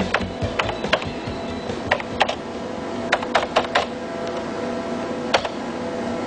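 Keystrokes on a computer keyboard, coming irregularly as a search is typed into a CD-ROM directory program.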